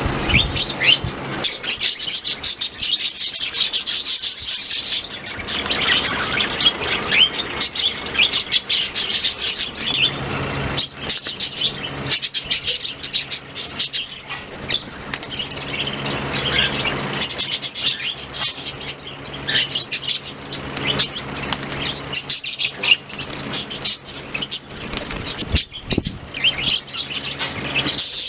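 Budgerigars chirping and chattering: a dense run of quick, high chirps with no pause.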